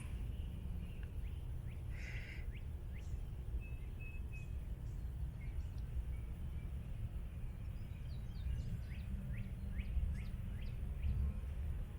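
Birds chirping in short, scattered calls, more of them near the end, over a steady low rumble.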